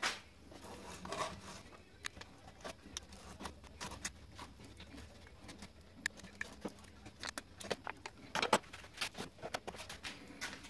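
Aluminium-foil pouch of a lithium battery cell being handled and peeled open by hand: scattered crinkles, clicks and small crackles, busiest near the end, with a louder click at the very start.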